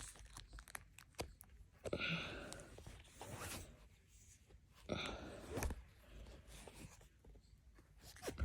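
Plastic shrink-wrap being torn and peeled off a CD box set: a few short tearing rips with small crinkles and clicks between them.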